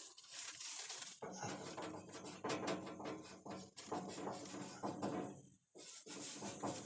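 Felt marker dotting and stroking marks onto a bare steel patch panel: a run of light, quick ticks and scratches, with a short pause near the end.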